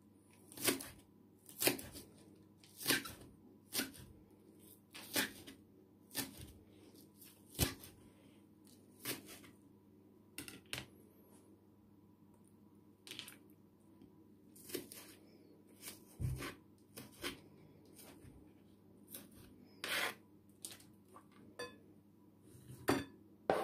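A kitchen knife slicing green onions on a plastic cutting board: a sharp tap of the blade on the board about once a second, coming more sparsely in the second half. Near the end, the blade scrapes across the board as the chopped onion is swept off.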